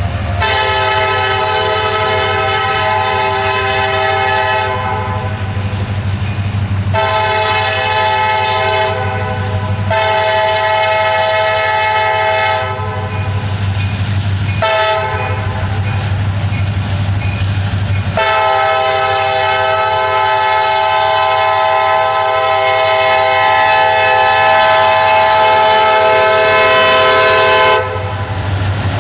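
Diesel freight locomotive's horn sounding for a grade crossing: several long blasts, a short one, then a final long blast of about ten seconds that cuts off suddenly as the locomotive reaches the crossing. The locomotive's diesel engine runs underneath with a steady low rumble.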